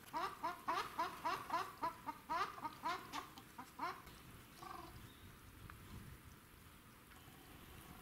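A waterfowl calling in a quick run of short calls, about four a second, for some four seconds, then one fainter call.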